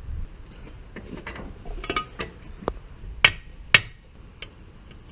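A few light metallic clinks, then two sharp hammer strikes on metal about half a second apart, each ringing briefly: hammering on a Toyota IFS front CV axle to knock it loose during differential removal.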